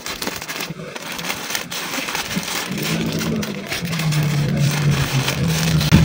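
Plastic snack and candy wrappers crinkling and rustling as packets are handled and stacked, with many small clicks. A low steady hum comes in about halfway through.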